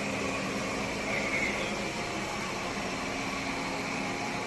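Airzeen R7 robot vacuum cleaner running: a steady motor hum with a constant hiss.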